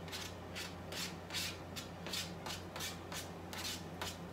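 A cooking utensil scraping and stirring in a frying pan, in quick repeated scratchy strokes, about two to three a second, over a steady low hum.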